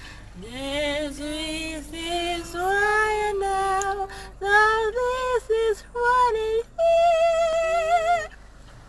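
A woman's voice singing a melody without clear words, in a string of held notes that step and glide in pitch, with vibrato. A longer held note near the end breaks off shortly before the close.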